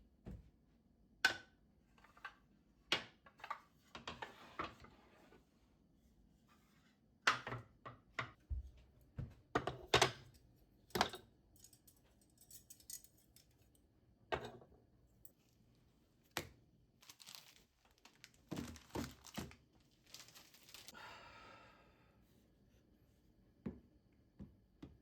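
Objects being handled by hand: irregular light knocks and clicks, with short stretches of crinkling or tearing.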